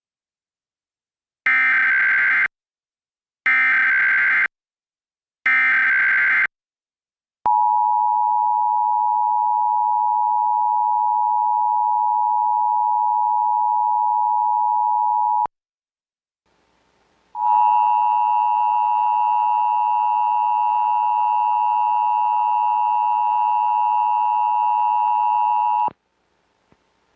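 Emergency Alert System test tones. First come three one-second bursts of the SAME digital header, then the EAS two-tone attention signal holds steady for about eight seconds and cuts off. After a short pause a second, harsher-sounding attention signal sounds for about eight and a half seconds.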